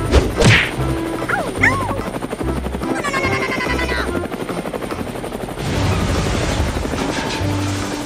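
Playful background music overlaid with cartoon sound effects: a whoosh near the start, a few springy pitch glides, and from about halfway on a helicopter rotor chopping effect.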